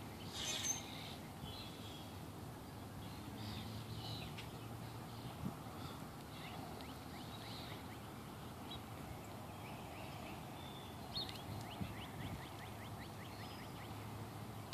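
Outdoor ambience of birds chirping here and there, with a fast trill about two-thirds of the way through, over a steady low hum.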